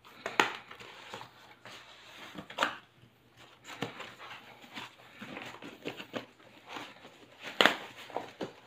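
Scissors snipping packing tape on a cardboard box, then the box being opened and a foam-wrapped item slid out, with cardboard scraping and wrapping rustling. Sharp snaps come about half a second in, near the middle, and loudest about a second before the end.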